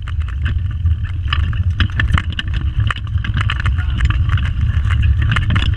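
Pedal go-kart rolling over the track: a steady low rumble from its wheels on the surface with frequent irregular rattles and clicks from the frame, picked up by a camera mounted on the kart. It grows a little louder over the first second.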